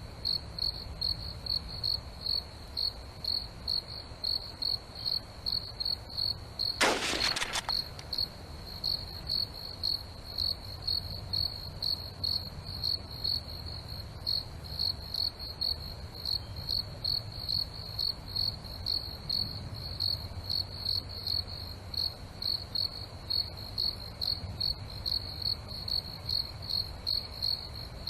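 Cricket chirping steadily, about two high chirps a second, over a low background rumble. About seven seconds in, a single sharp burst of noise cuts across the chirping for under a second.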